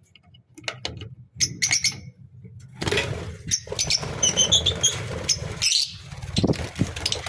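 Lovebirds chirping in short, high calls, with wings flapping.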